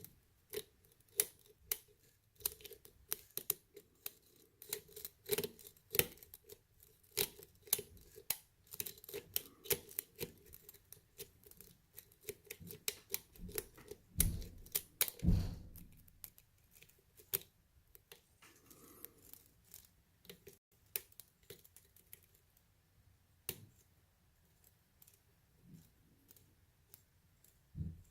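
Metal lock pick clicking and scraping against the pins inside a pin tumbler lock's keyway while the lock is held under tension: a rapid, irregular run of small sharp clicks, denser in the first half and sparser later, with two heavier knocks about 14 and 15 seconds in.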